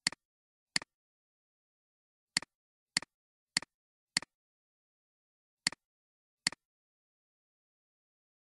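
Computer mouse button clicks: eight in all, each a quick press-and-release double click, at uneven intervals with dead silence between them.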